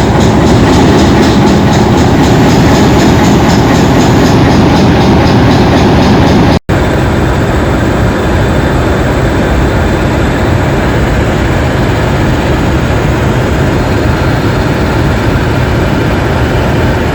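English Electric diesel locomotive running loudly under power, a dense, steady engine noise. The recording cuts to a second clip about six and a half seconds in.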